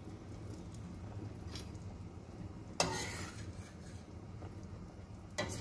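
A metal ladle knocks against a stainless steel stockpot and stirs through meatball soup, first about three seconds in and again near the end, over a steady low hum.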